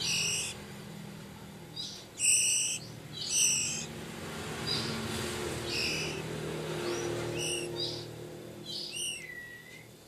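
Oriental magpie-robin nestling giving short, high, scratchy begging calls, about one a second and irregularly spaced, with one call near the end sliding down in pitch: the chick is asking to be fed.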